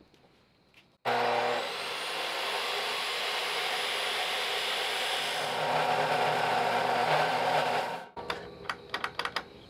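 Abrasive chop saw starts about a second in with a rising whine and cuts through thick steel bar stock under heavy load. Its noise stops abruptly near the end when the saw trips the circuit breaker, and a few short clicks follow.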